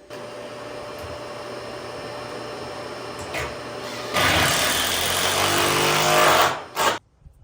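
Electric drill running steadily, then louder and straining under heavier load from about four seconds in, stopping suddenly near the end, with one short burst of the motor just after. It is boring or driving structural screws into the white oak tabletop to fix the base.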